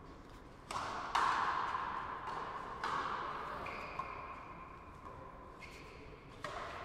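A frontenis rally: the rubber ball cracks off strung rackets and the concrete front wall in a string of sharp hits, irregularly spaced about one to two seconds apart. Each hit rings on in the big hall's echo. The loudest hits come about a second in and again at the very end.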